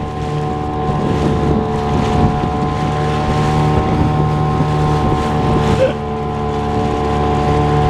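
Small boat's motor running steadily at constant pitch, with wind buffeting the microphone and water noise.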